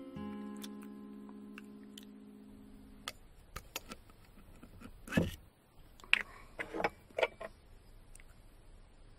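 A held music chord fades out over the first three seconds. Then come scattered light clicks and knocks of cutlery and dishes on a table, with one louder knock about five seconds in.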